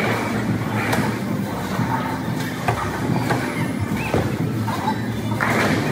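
Bowling alley din: a steady low rumble of balls rolling down the lanes, with several sharp clacks of balls and pins striking.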